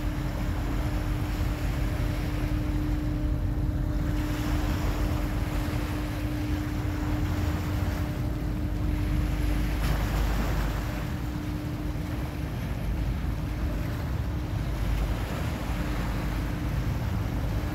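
Small waves washing up a concrete slipway, with the steady hum of a departing car ferry's engine, which drops out briefly past the middle. Wind buffets the microphone.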